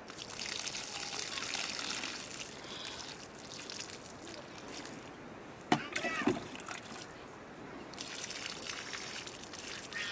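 Water pouring and trickling from a small plastic jug onto loose soil among vegetable seedlings, in two pours: one for the first few seconds and another near the end. Between the pours come a sharp click and a brief pitched call.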